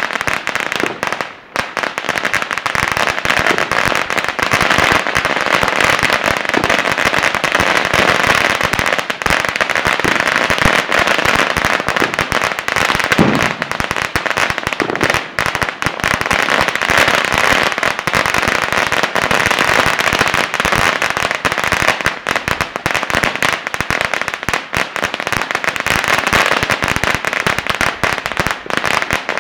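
Firecrackers going off in a dense, continuous rapid popping, with a brief lull about a second and a half in.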